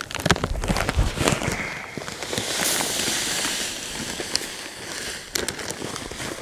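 Elemental sulfur pellets pouring from a bag into a plastic broadcast spreader hopper: a steady hissing rattle of many small pellets. It builds up about two seconds in, after a few sharp knocks.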